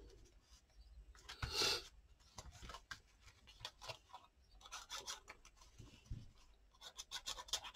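Paper and card rubbing and rustling as pieces are handled and slid into place, with small clicks and one louder brief scrape about a second and a half in.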